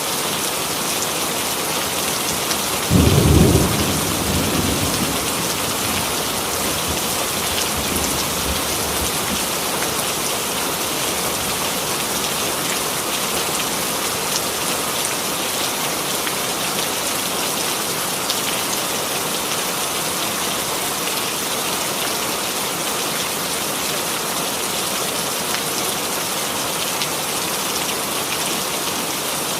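Steady rainfall, with a clap of thunder about three seconds in that rumbles away over the next few seconds.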